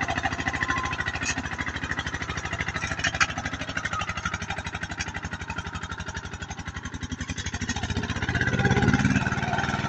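Kubota two-wheel walking tractor's single-cylinder diesel engine chugging steadily as it pulls a loaded cassava trailer, growing louder near the end.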